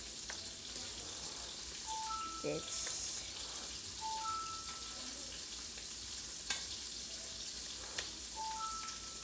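Sautéed batchoy sizzling in a pan, with a couple of sharp utensil-like clicks. A two-note electronic beep, low then high, repeats about every two seconds, three times.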